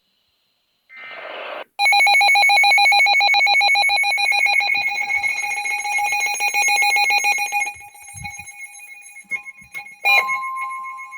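Emergency Alert System weather radio alert. It opens with a short burst of SAME header data tones, then a weather-alert receiver's alarm beeps loudly in a rapid pulsing pattern for about six seconds. After a click about ten seconds in, the steady single-pitched warning alarm tone sounds, ahead of the spoken warning.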